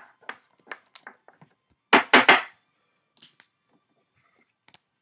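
Trading cards and plastic pack wrappers being handled, with light rustling and clicking, then three quick, loud knocks against the table about two seconds in.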